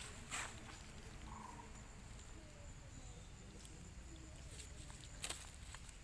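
Faint snaps and rustles of leafy grass stems as a young monkey pulls them and eats, with a sharper snap about five seconds in. A short faint call sounds about a second and a half in over quiet outdoor background.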